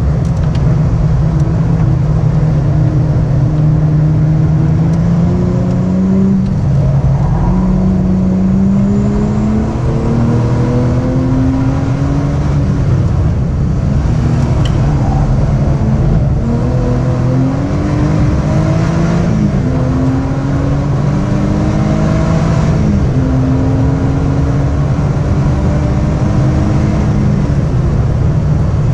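Lotus Exige V6's supercharged 3.5-litre V6 at full throttle on track, heard from an action camera mounted on the car's flank. The engine note climbs steadily in pitch through each gear and drops back at every upshift, several times over, with short lifts between.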